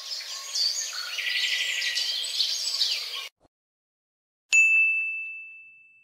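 Birds chirping and twittering in a busy chorus for about three seconds, which cuts off abruptly. After a short silence comes a single high, bright bell-like ding, which rings on and fades away over about a second and a half.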